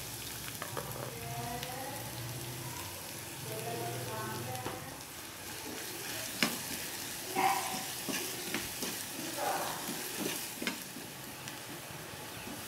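Seasoning sizzling in hot oil in a pan while being stirred. From about halfway through, the spoon scrapes and knocks against the pan again and again.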